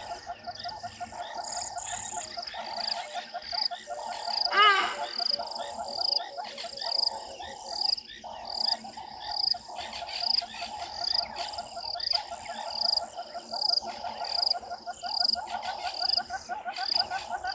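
A steady chorus of calling animals, with evenly repeated high chirps about twice a second over a dense, rapidly pulsing lower band. About four and a half seconds in, one short, loud, wavering call cuts through it.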